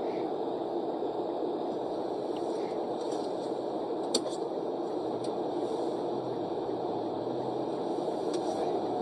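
Steady car engine and road noise heard from inside the cabin, with one sharp click about four seconds in.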